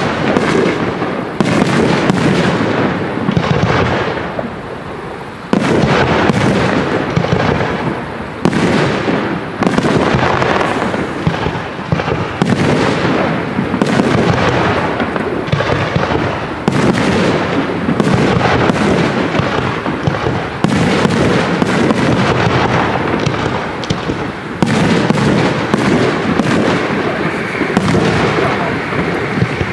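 Aerial firework shells launching and bursting one after another with hardly a pause, a dense barrage of bangs that ring on after each burst.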